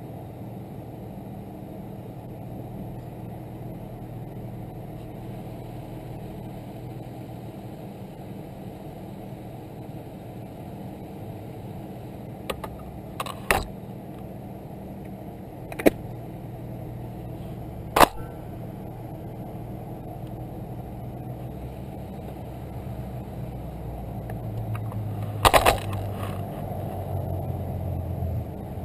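Mini bike's 212cc Predator single-cylinder engine idling steadily, with several sharp clicks scattered through the second half.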